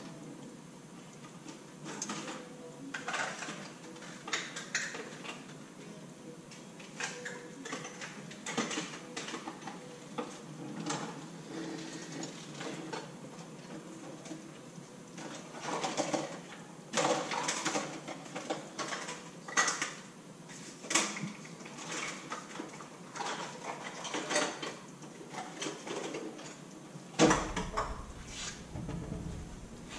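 Kitchen clatter: dishes, pots and utensils knocked and shifted while someone rummages in a cabinet, a string of irregular clicks and clanks with a louder thump near the end.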